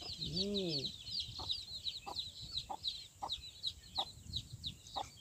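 Birds chirping quickly and without a break in short high notes, with a lower cluck-like note repeating about every two-thirds of a second. A brief low hum rises and falls about half a second in.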